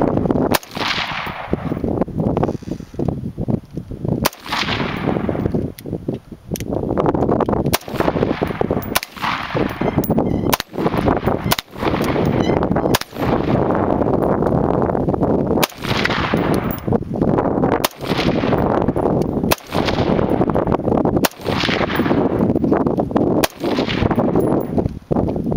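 AR-15 rifle firing single shots in a steady series, about one every one to two seconds, each shot trailing off in a long echo.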